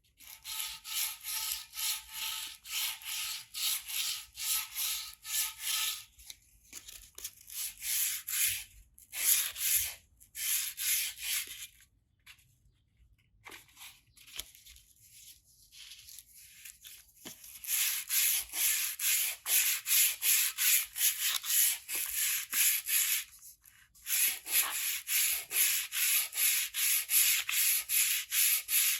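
Hand sanding of an aluminium motorcycle exhaust: quick back-and-forth rubbing strokes of abrasive on metal, about three a second. There are short breaks, and a quieter stretch of a few seconds in the middle.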